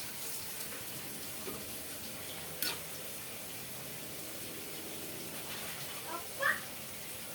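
Steady hiss of running water, with a single sharp click about two and a half seconds in and a brief high-pitched call near the end.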